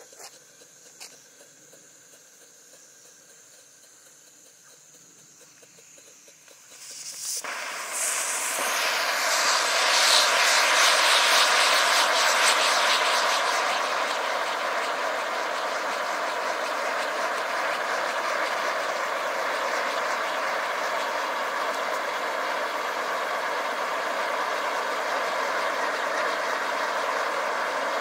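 Monkey Mania Mad Scientist fountain-and-spinner firework: after several quiet seconds, it ignites about seven seconds in with a sudden rushing hiss. The hiss swells for a few seconds and then settles into the steady hiss of the spinner throwing sparks.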